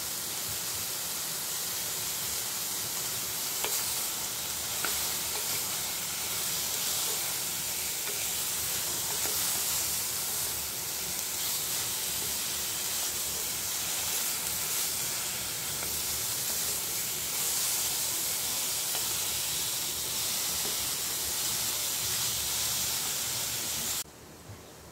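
Chopped beetroot, carrots, onion and tomato frying and sizzling in an aluminium pot while being stirred with a wooden spoon, a steady hiss with faint clicks of the spoon. The sizzling cuts off suddenly near the end.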